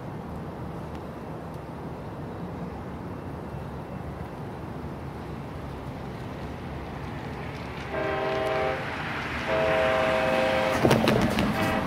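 A train approaches with a steady low rumble. About eight seconds in, its locomotive air horn sounds a chord in two blasts, a short one and then a longer one, the horn signal for a grade crossing. Just before the end comes a burst of sharp clatter.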